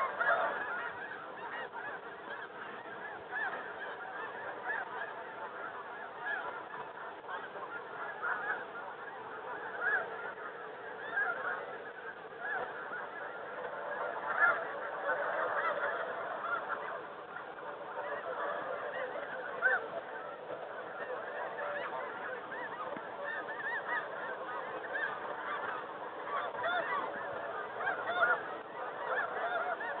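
Snow geese calling in a large flock: many high honks overlapping into a continuous chatter without a break.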